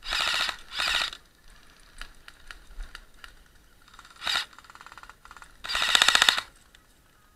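Airsoft electric guns firing full-auto bursts: four short bursts of rapid rattling shots, the last the longest, with a few single sharp clicks between them.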